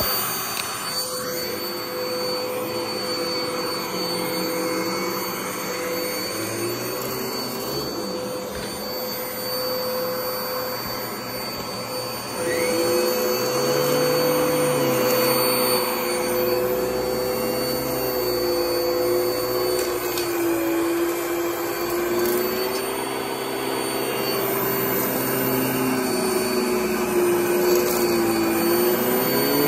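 Sanitaire by Electrolux upright vacuum cleaner running over carpet, a steady motor hum with a high whine. It gets louder about twelve seconds in.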